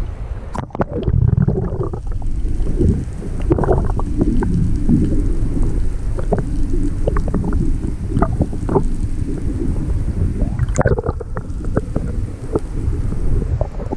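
Wind buffeting the microphone, a steady low rumble, with scattered knocks and clicks throughout.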